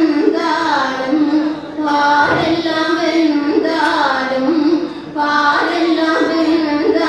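Several women singing a Tamil devotional song together, with a harmonium played along under the voices; the phrases break briefly about two seconds and five seconds in.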